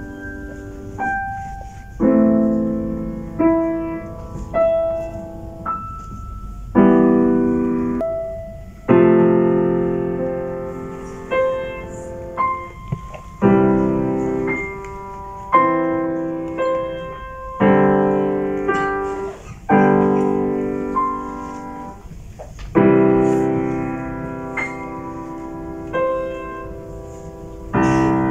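Steinway grand piano playing a slow piece of chords, each struck and left to ring and fade, about one every second or so.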